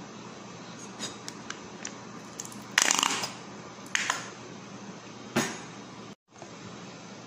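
Plastic squeeze bottle of mayonnaise squirting and sputtering into a bowl: a few light clicks, then a short loud sputter about three seconds in and two smaller ones after it.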